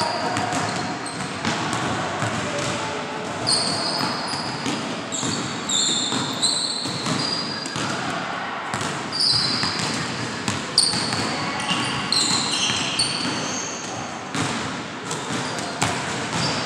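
Basketball bouncing on a hardwood gym floor, with sneakers squeaking sharply and repeatedly on the court through the middle of the stretch.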